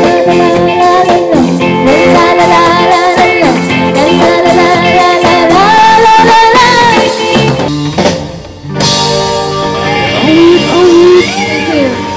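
A rock band playing live: a woman sings lead over electric guitar, bass guitar and drum kit. The music breaks off briefly about eight seconds in, then picks up again.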